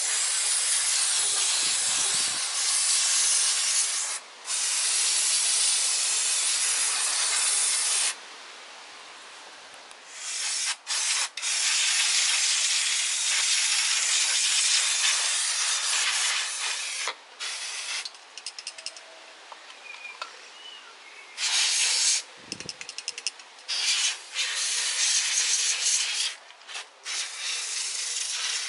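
Aerosol chain degreaser hissing in long sprays onto a bike chain, then in shorter, broken bursts near the end as the can runs out.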